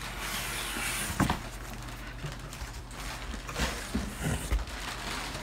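Cardboard boxes and packing being handled: rustling and scraping, with a sharp knock about a second in and more rustling with light knocks later on.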